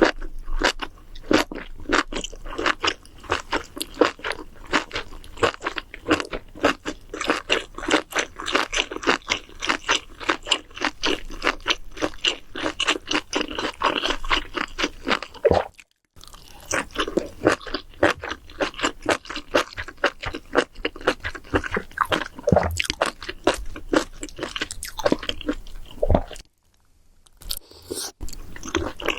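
Close-up crunching and chewing of crisp food: rapid sharp crunches, several a second, breaking off briefly about halfway and again near the end.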